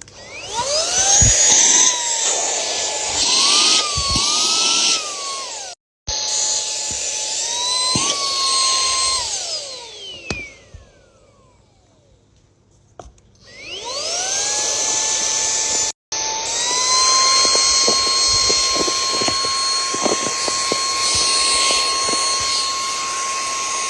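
Small handheld cordless vacuum built into a car jump starter and power bank: its motor whines up to speed and runs with a high steady whine. About nine seconds in it winds down to a stop with a long falling whine, then is switched on again, spins up and runs steadily.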